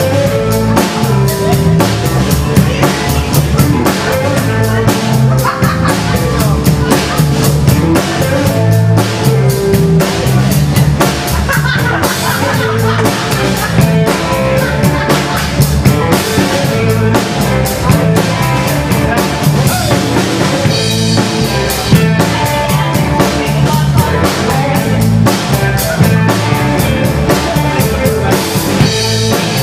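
Live amplified rock band playing: a drum kit keeping a steady beat under electric guitars and bass.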